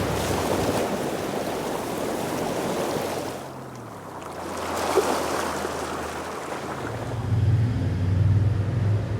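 Outdoor coastal street ambience: a rushing wash of noise that dies down and swells again, then a low engine hum that comes in near the end.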